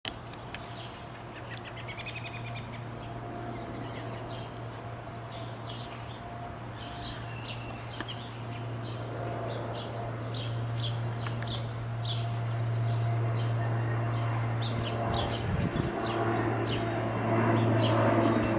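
Cessna 208 Grand Caravan's three-bladed propeller and PT6A-114A turboprop approaching, a low steady drone that grows louder, fuller and noisier over the last few seconds. Birds and insects chirp throughout, with a steady high insect whine.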